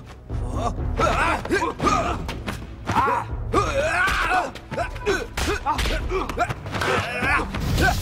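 Film fight soundtrack: a rapid, irregular run of dubbed punch and block impact effects with the fighters' short grunts and shouts, over a music score.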